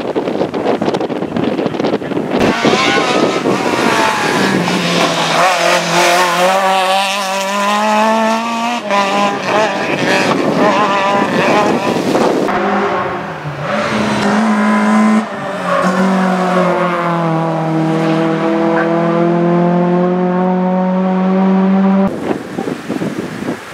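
Competition car engine revving hard through a slalom course, with tyre noise at the start. The engine pitch climbs, drops at gear changes and lifts again, holding high for long stretches.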